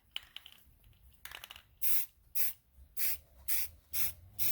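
Aerosol spray paint can sprayed in about six short bursts, roughly two a second, starting about two seconds in, with a few light clicks before.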